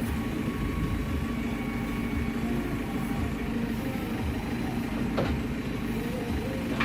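Diesel engine of a JCB 3CX backhoe loader running steadily, with a sharp knock about five seconds in and another at the end.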